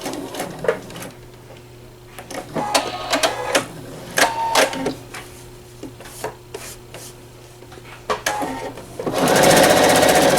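PFAFF Quilt Expression 4.0 sewing machine: the stitching stops, then come scattered clicks and a short beep, and about nine seconds in the machine starts sewing again quickly. A faint steady hum lies underneath throughout.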